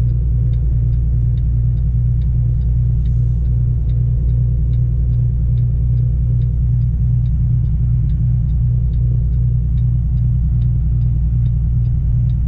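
Semi truck's diesel engine running steadily at low speed, heard from inside the cab as a low rumble, with a light regular ticking a little more than twice a second.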